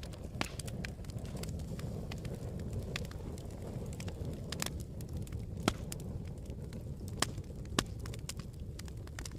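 Campfire crackling: a steady low rumble of burning wood with scattered sharp pops and snaps, a few louder ones in the second half.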